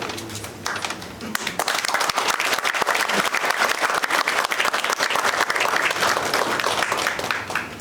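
Audience applauding: a dense patter of many hands clapping that swells about a second and a half in and dies away just before the end.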